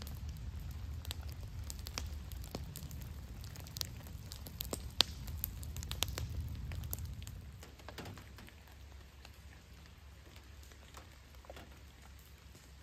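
Wood campfire crackling and popping, sharp pops over a low rumble, the loudest pop about five seconds in. After about eight seconds it turns quieter, with sparser ticks.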